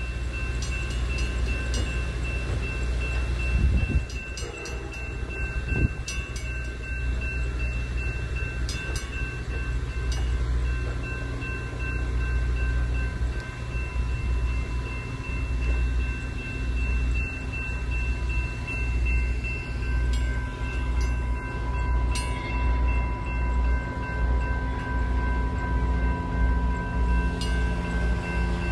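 Railroad crossing warning bell ringing steadily while the signals flash, over a low, unevenly pulsing rumble.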